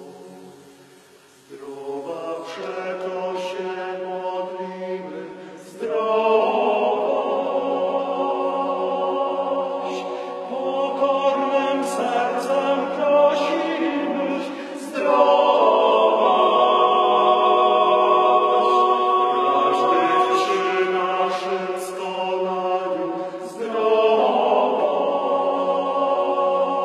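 Men's choir of about nine voices singing a cappella, sustained chords in harmony. It enters softly after a brief hush and swells louder about six seconds in and again about halfway through.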